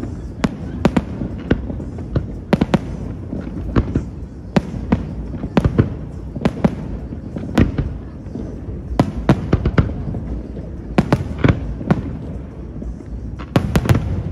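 Aerial fireworks shells bursting in irregular succession: sharp bangs singly, in pairs and in quick clusters every half second to two seconds, over a continuous low rumble. A denser cluster of bangs comes near the end.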